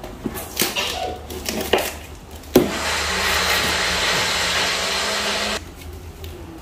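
A parcel's packaging being opened by hand: clicks and crinkling, then a sharp snap and a steady tearing noise about three seconds long that cuts off abruptly.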